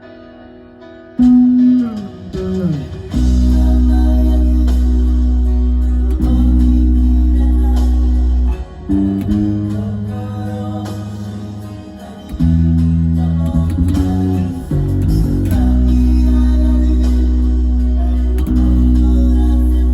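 Music: a bass guitar plays long, held low notes within a full band arrangement. The music comes in loud about a second in, after a quiet opening.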